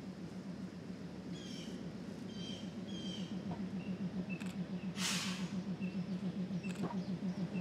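A 1940s PCC streetcar approaching on its rails, a low pulsing hum that grows steadily louder as it nears. A few short high chirps come in the first half, and a brief hiss about five seconds in.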